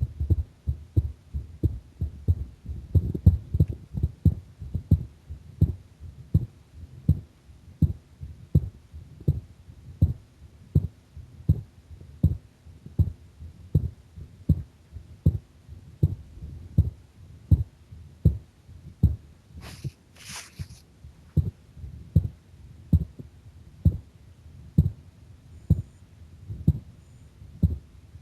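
A girl's heartbeat, close-miked: steady rhythmic low thumps, closely spaced for the first few seconds and more widely spaced after. A short burst of noise about twenty seconds in.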